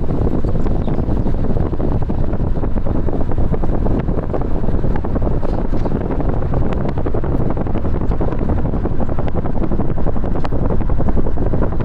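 Wind buffeting the microphone: a loud, steady low rumble with constant crackling.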